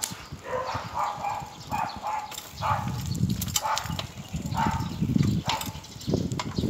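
Short animal calls, dog-like barks, repeated about once a second, with wind rumbling on the microphone from about a third of the way in.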